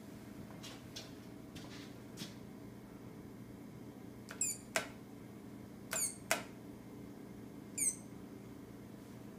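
Taylor digital timer beeping briefly three times as its buttons are pressed to clear and start it, with two sharp button clicks in between, over a steady low hum.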